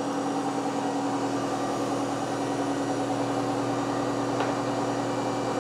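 A DC motor spinning a hand-blender motor as a generator through a rubber belt, running at a steady speed with an even mechanical hum while the generator lights a row of bulbs. A light click about four seconds in.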